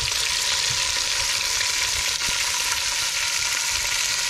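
Pork and smoked sausages frying in hot lard: a steady, dense sizzle with fine crackling as the meat browns.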